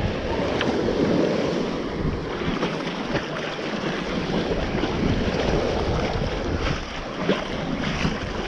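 Ocean surf washing on a beach, swelling and easing, with wind buffeting the microphone.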